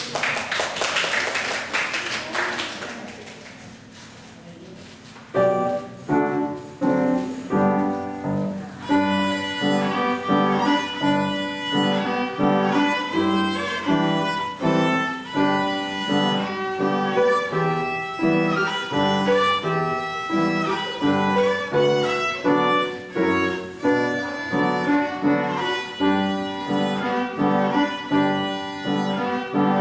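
Violin and upright piano playing together: after a brief burst of noise at the start, the piano comes in with chords about five seconds in, and the violin joins a few seconds later, playing the melody over them.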